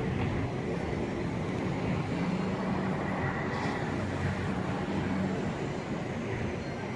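Steady low rumble of an elevated subway train on the track, easing slightly near the end.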